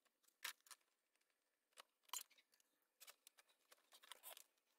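Near silence, with a few faint clicks and taps as the metal clamp band is worked loose and lifted off a DE pool filter tank. The clearest clicks come about half a second and about two seconds in.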